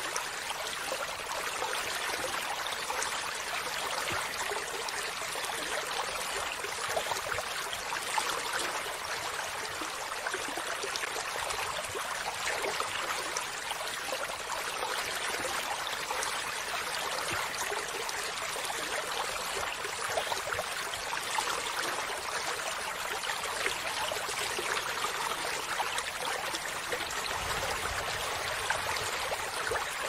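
Shallow stream flowing over rocks: a steady, even babble of running water, bright and light, with little low rumble.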